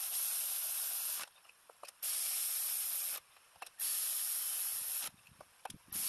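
Cordless electric ratchet running in four bursts of about a second each, with short pauses between, spinning new spark plugs into the engine.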